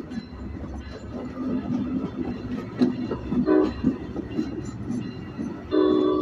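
Amtrak passenger train running on the rails, a steady rumble with wheel clicks. A brief horn note sounds about halfway through, and a longer horn chord starts near the end.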